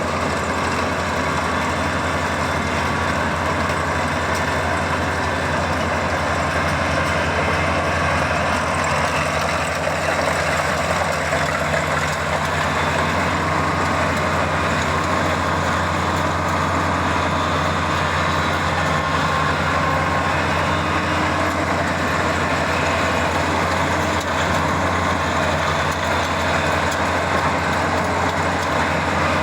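Kubota DC-35 combine harvester running steadily, its engine hum and machinery noise continuous and unchanging.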